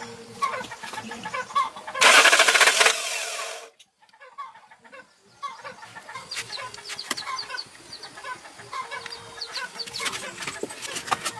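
Chickens clucking in short, repeated calls. About two seconds in, a loud burst of hissing noise lasts under two seconds and cuts off, followed by a brief near-silent gap before the clucking resumes.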